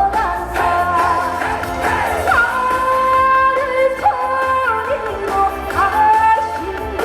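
Trot song performed live: a woman singing long held, sliding notes over instrumental accompaniment.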